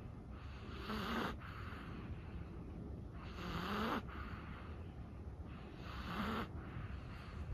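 A sleeping Chihuahua snoring softly. Three slow, rhythmic breaths come about two and a half seconds apart, each cutting off sharply.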